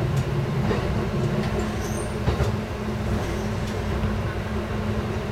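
KiHa 11 diesel railcar running steadily along the track, heard from inside the cab: its engine drone and wheel-on-rail rumble, with a few faint clicks.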